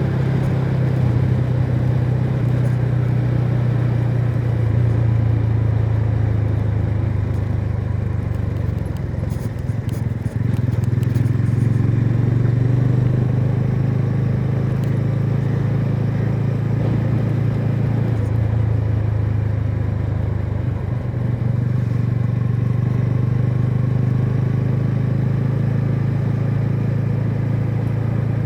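TVS Ronin's single-cylinder engine through its stock exhaust, running steadily while the motorcycle is ridden, with a brief dip about ten seconds in and a change in engine note a little after eighteen seconds as the throttle changes.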